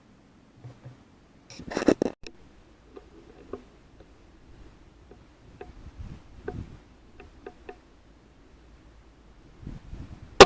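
Air rifle handling sounds: a short clattering burst about two seconds in, then scattered faint clicks and ticks, ending in a sharp metallic clang with a brief ringing tail.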